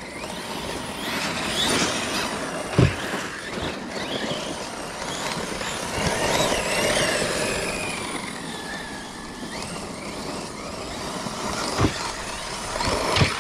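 Electric RC cars running flat out: the brushless motor whine rises and falls in pitch over a rushing noise of tyres on dirt. Sharp thumps come about three seconds in, near twelve seconds, and just before the end.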